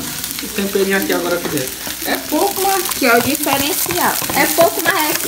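Chopped mortadella and scrambled egg sizzling in a frying pan while being stirred with a spatula; chopped tomato and coriander are tipped into the pan from a plastic tub near the end.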